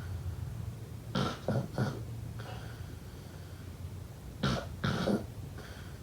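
Snoring in two breath cycles: each is a pair of short rough snores in quick succession, about a second in and again about four and a half seconds in, followed by a softer breathy out-breath. A steady low hum runs underneath.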